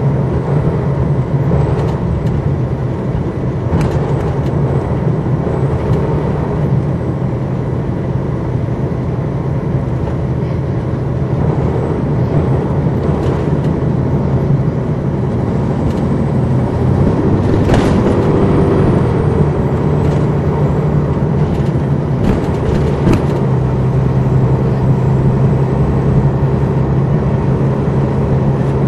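Detroit Diesel Series 60 diesel engine of a 2002 MCI D4000 coach, heard from inside the bus as it runs, a steady low drone with scattered knocks and rattles. Its note shifts a little past halfway and grows louder through the second half.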